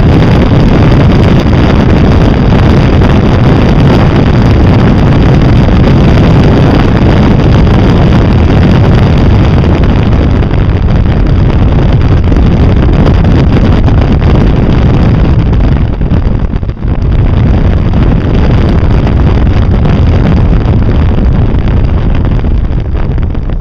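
Heavy wind buffeting on a vehicle-mounted camera's microphone, mixed with the running engine of a Can-Am at road speed. The noise holds steady and loud, with a brief dip about two-thirds of the way through, and begins to ease near the end.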